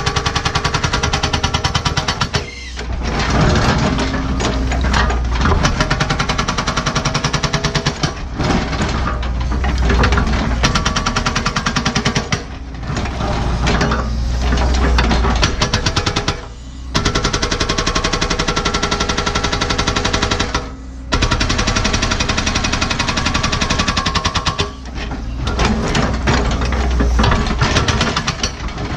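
NPK hydraulic hammer on a Cat 314E excavator pounding hard blue-rock bedrock in rapid blows, over the excavator's diesel engine running. The hammering stops for a moment several times, every few seconds.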